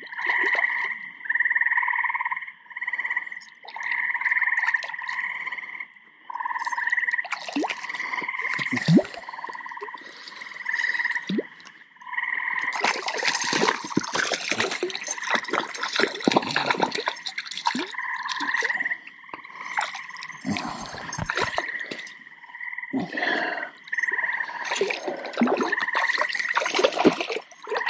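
Frogs calling from the pond, short calls repeating about once a second. Bursts of splashing at the water's edge come in the middle and near the end, as a hooked trout is brought in to the shore.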